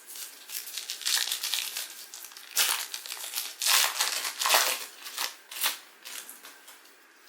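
A trading-card pack wrapper being crinkled and torn open, in irregular crackly bursts that die down near the end.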